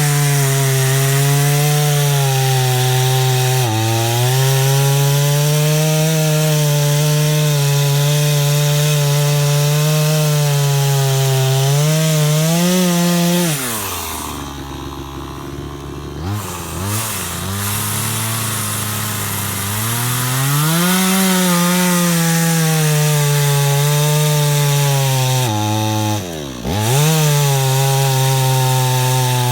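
PROYAMA 62cc two-stroke gas chainsaw running at high revs, its pitch sagging and recovering as it cuts wood. About halfway through it falls back to idle for a couple of seconds, then revs up again, with one quick dip in revs near the end.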